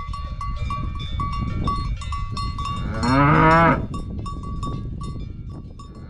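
A cow moos once, a long call about three seconds in. Irregular clinking of cowbells and a steady low rumble run underneath.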